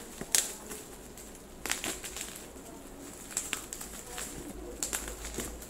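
Plastic packaging crinkling and rustling in irregular bursts as a wrapped tripod is handled and set down, with the loudest crackle about half a second in.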